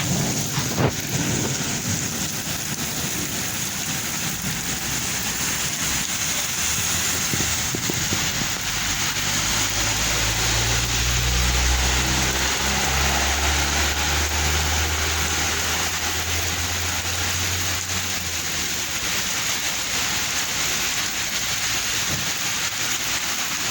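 Steady rain falling. A low engine hum, like a vehicle going by, comes in about a third of the way through and fades out about three quarters through.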